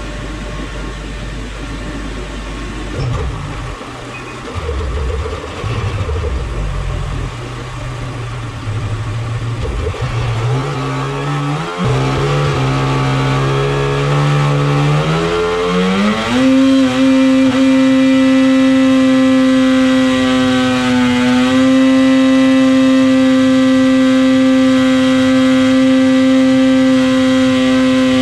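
Rotax 800 E-TEC two-stroke snowmobile engine on a dyno, idling unevenly at first, then revving up over about six seconds. It then holds at a steady high pitch for the rest of the power run, with a brief dip partway through.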